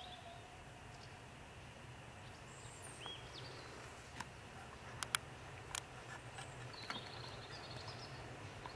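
Quiet lineside ambience: birds chirping over a faint low steady rumble. At the very start the tail of a steam locomotive's whistle fades out, and a few sharp clicks come in the middle.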